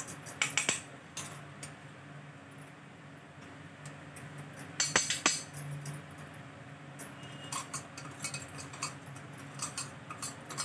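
Stainless-steel spoon clinking and scraping against steel bowls as ground spice is tipped into a pot, with glass bangles jingling on the wrist. The sharpest clinks come about five seconds in. A low steady hum runs underneath.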